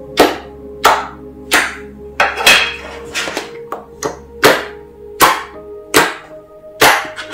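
Hands pressing down on a sheet of clear water slime, each press a sharp wet smack, about one every three quarters of a second with a short flurry a little past two seconds in.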